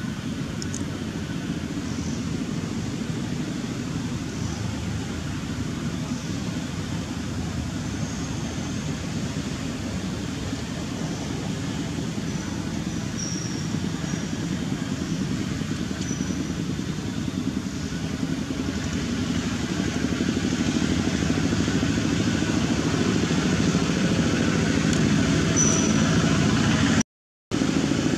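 Steady low rumble of a motor engine running, growing louder about two-thirds of the way through, with faint short high chirps now and then; the sound cuts out for a moment near the end.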